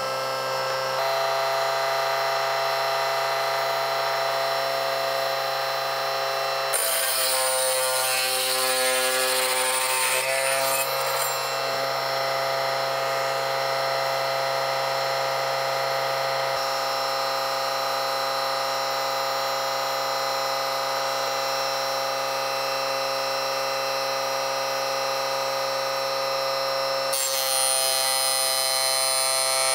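Homemade mini table saw running steadily, its 24 V DC 775 motor driving a 60 mm circular blade through a timing belt while the blade cuts through thin sheet material. A rougher stretch of cutting noise comes about seven to ten seconds in, and the tone of the running saw shifts abruptly several times.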